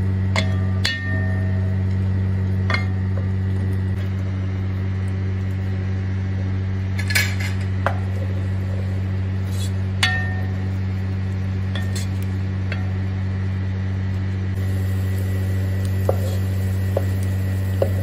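A wooden spoon knocking and scraping against a metal pot while stirring onions in oil, with a dozen or so scattered clicks, some leaving a brief ring. A steady low hum runs underneath.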